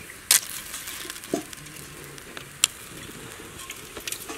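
Water sizzling in a hot wok of snails over a wood fire, with a few sharp clicks, the loudest about a third of a second in.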